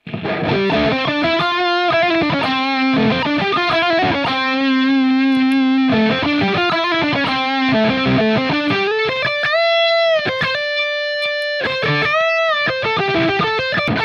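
Distorted electric guitar driven by overdrive and fuzz pedals and fed through an MXR Smart Gate noise gate. It plays a quick riff of picked notes, then two upward string bends with long sustained notes.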